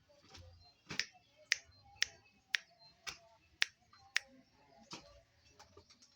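A run of seven sharp clicks, evenly spaced about two a second, then a few weaker clicks.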